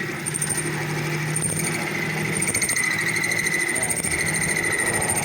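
WM210V benchtop mini lathe running at a steady speed: a steady motor whine with a high hum and several fixed tones.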